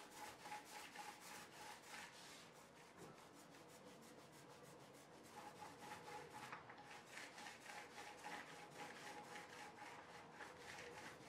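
Faint rasping of a small paint roller rolled up and down a wall in quick, repeated strokes.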